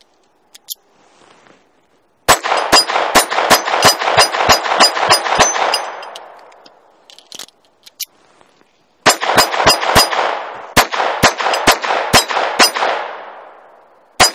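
Ruger LCP II .22 LR pistol firing two rapid strings of shots, about three to four a second, each string trailing off in echo, with one more shot near the end.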